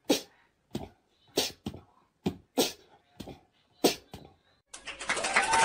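A corgi giving a run of about nine short, breathy barks, irregularly about two a second. Music starts near the end.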